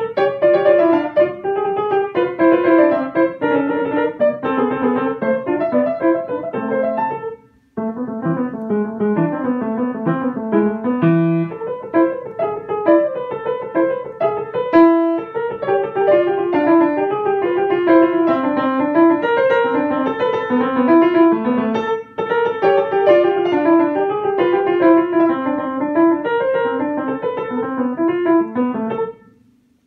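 Upright piano played solo: quick running notes, with a short break about seven and a half seconds in and a brief pause again later, the playing stopping near the end.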